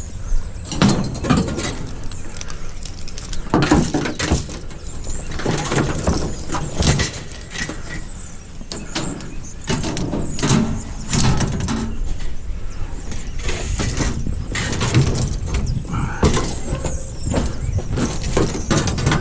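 Irregular clattering, knocks and scrapes of junk being pulled out and handled in a curbside trash pile, over a steady low rumble.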